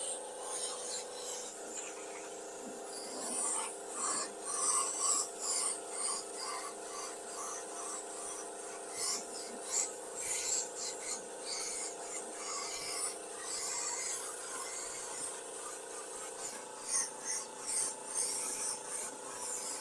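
Compressed-air paint spray gun hissing in repeated short bursts as paint is sprayed onto tyre-rubber cups, over a steady hum.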